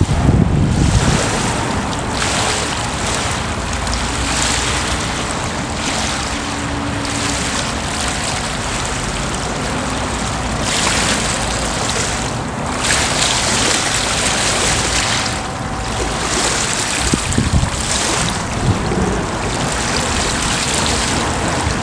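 Water waves washing and splashing steadily, swelling every second or two. There is low wind rumble on the microphone in the first second or so.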